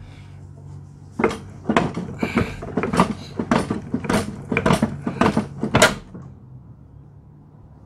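Craftsman push mower being rocked back and forth on its wheels, its deck and wheels clunking and rattling about a dozen times over some five seconds before it is set still.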